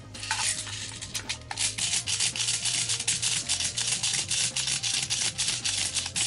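High-cycle DSG airsoft electric gun firing a long full-auto burst. It makes a rapid, continuous rasping buzz as BBs stream into the chronograph backstop.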